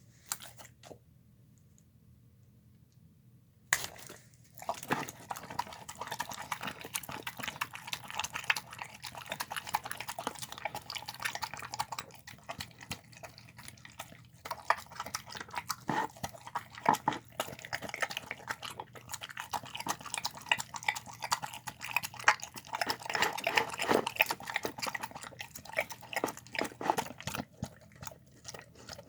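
A dog eating wet chicken, rice and beans: rapid chewing, smacking and slurping that starts about four seconds in and continues densely.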